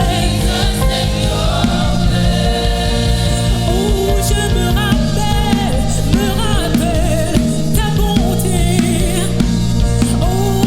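Gospel worship song: singing with wavering, sustained notes over steady instrumental accompaniment.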